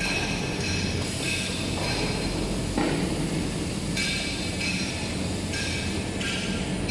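Automatic band saw cutting machine for maxi toilet paper rolls running steadily: a constant mechanical hum under a higher hiss that shifts in level every half second or so.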